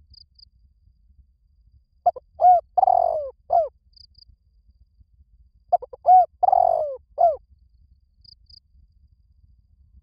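Spotted dove cooing: two phrases about two seconds apart, each of four low coos with a longer, drawn-out third note.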